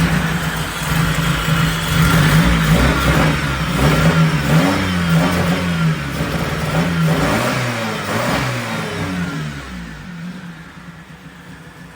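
1992 Honda Civic's four-cylinder engine running unevenly just after its first start since the engine was installed, revved up and down a few times; it sounds rough, which the owner calls "not happy". It settles and gets quieter over the last few seconds.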